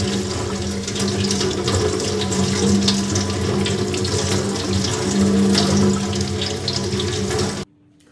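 Kitchen tap running, the water stream splashing into the sink over hands and a wooden paint-stirring tool as water-based paint is scrubbed off it. The running water cuts off abruptly near the end.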